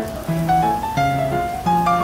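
Background instrumental music: a melody of short plucked notes over bass notes, at a steady pace of about three notes a second.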